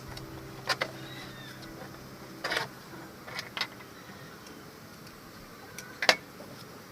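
Several sharp clicks and a short clatter of hard parts being handled, over a faint steady hum that fades about two and a half seconds in; the loudest click comes near the end.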